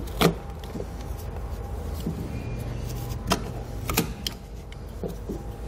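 A red-handled hose cutter cutting through a rubber vacuum hose, the line that runs from the intake to the brake booster, to take out a short section. It gives three sharp clicks, the last two close together near the end, over a steady low hum.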